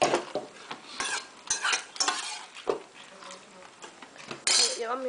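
Tableware at a meal: spoons and cutlery clinking and scraping against bowls and plates in a string of separate sharp clicks and scrapes, with a louder scraping rustle near the end.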